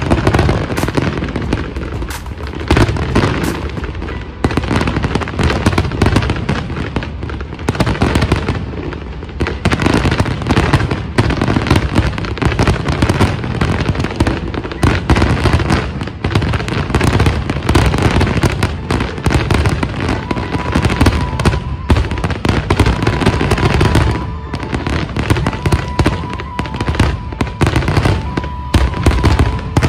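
Fireworks display in a continuous barrage: rapid, overlapping bangs and crackles of many aerial shells bursting at once, with no let-up.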